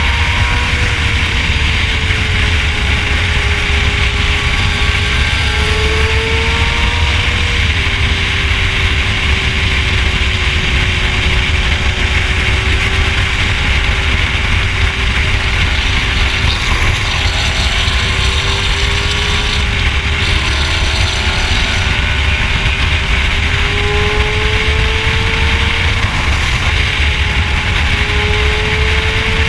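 Sport motorcycle engine running at a steady highway cruise under heavy wind rumble on the microphone. Its note drops sharply about eight seconds in and rises slowly toward the end.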